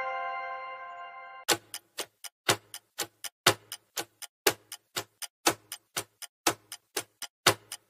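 A bell-like chime fading out, then a clock ticking quickly, a louder tick about once a second with softer ticks between: a countdown-timer sound effect running while a quiz question waits for an answer.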